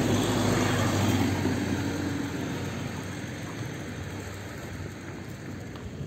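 A car driving past on the road, loudest at the start and fading steadily as it moves away.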